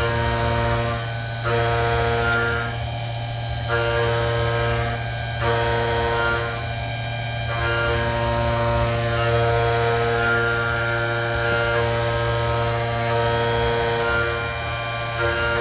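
CNC mill running: a steady motor hum under a set of whining tones that drop out and come back every second or two, then run on more steadily in the second half.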